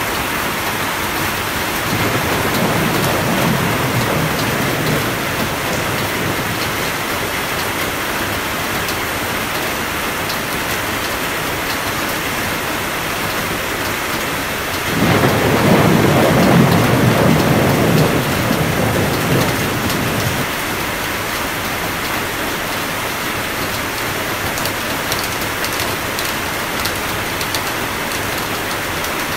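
Steady rain with two rolls of thunder: a softer rumble about two seconds in, then a louder one that starts suddenly around the middle and rumbles on for about five seconds.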